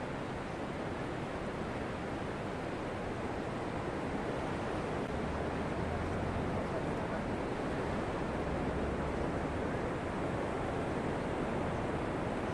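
Ocean surf breaking and washing up a flat sandy beach, a steady rushing noise.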